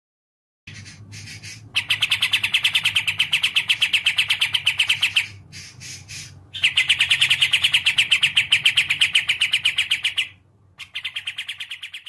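Kapas tembak songbird singing: long fast trills of evenly repeated notes, about eight a second, in two long runs and a shorter one near the end, with short pauses between. They follow a softer opening phrase about a second in.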